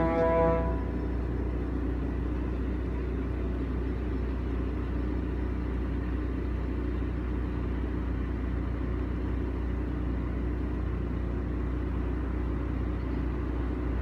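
Music cuts off about a second in, leaving the steady low rumble of a car's road noise as it drives slowly along.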